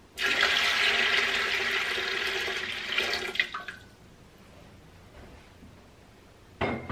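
Water poured from a glass jar into an empty 23-quart Presto aluminium pressure canner, splashing onto the metal bottom for about three and a half seconds before it stops. Near the end comes a short knock.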